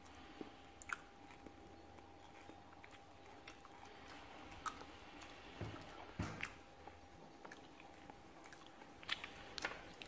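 Colored pencil scratching softly on paper while a drawing is shaded, with scattered light taps and clicks; a cluster of sharper clicks comes near the end.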